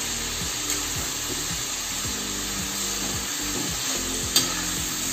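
Potato strips deep-frying in hot oil in an iron kadai on their second fry, the oil sizzling and bubbling hard and steadily. The fries are kept in until this bubbling dies down, which makes them crisp outside and soft inside. A metal spoon clicks against the pan about four seconds in and again near the end.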